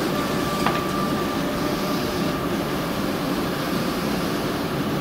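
Steady low rumble of background noise filling a large hall, with faint thin steady tones and a single light tap a little under a second in.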